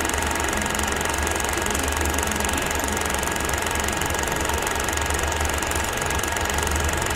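Film projector running: a steady, very fast mechanical clatter over a low motor hum.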